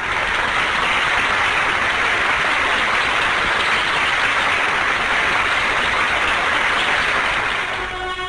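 Crowd applauding steadily. Near the end a brass band starts playing sustained notes.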